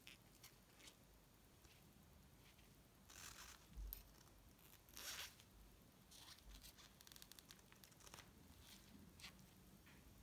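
Faint handling sounds as gloved hands work a cotton wick into the tube of an antique gasoline blowtorch. A few short scraping swishes come first, then a run of light clicks and scrapes.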